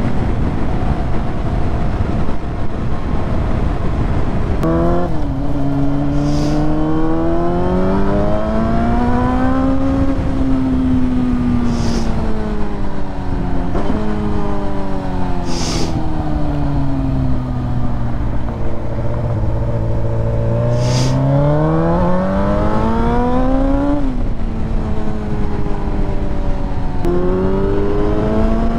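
Sport motorcycle engine under way, its pitch climbing and falling with the throttle and jumping suddenly at a few gear changes, over steady wind noise.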